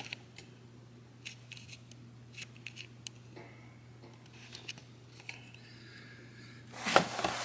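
Faint scattered clicks and taps of cardboard model-kit boxes being handled, over a low steady hum, with a louder rustle of handling near the end.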